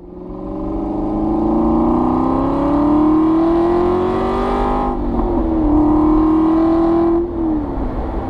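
Aston Martin V8 Vantage's V8 exhaust burbling, recorded from a microphone in the boot, with the car held a gear or two low so the revs stay up. The engine note fades in and climbs steadily under acceleration, dips briefly about five seconds in, holds steady, then the revs fall away near the end.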